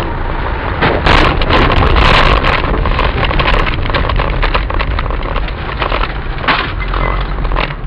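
Car sliding off a snowy road into the verge, heard from inside the cabin: from about a second in, a loud rush of noise with a run of knocks and rattles, and two sharper thumps near the end.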